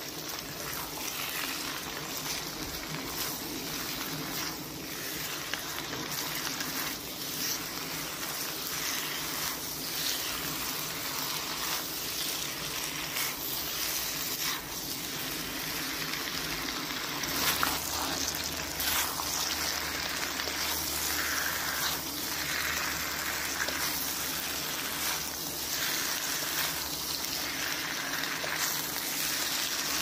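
Beef and snow peas frying in oil in a pan, a steady sizzle with irregular short knocks and scrapes of stirring. A low steady hum comes in a little past halfway.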